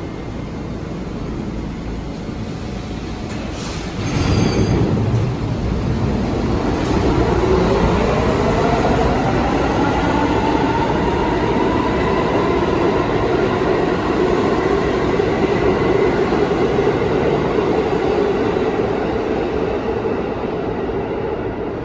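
R179 subway train running on the rails: about four seconds in it gets louder, then its motor whine rises in pitch for several seconds as the train picks up speed and levels off, over steady wheel and track noise.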